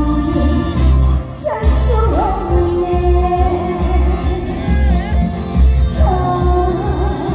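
Live Korean trot song: a woman singing long held notes with vibrato, sliding between pitches, over a band with a heavy pulsing bass.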